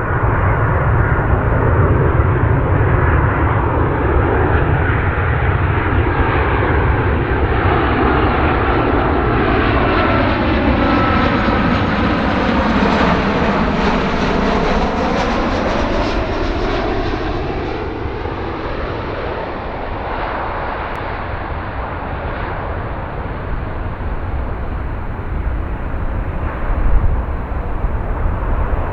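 Jet airliner on final approach passing close by: the engine noise swells to a peak about halfway through, with a swooshing sweep in pitch as it goes over, then fades away.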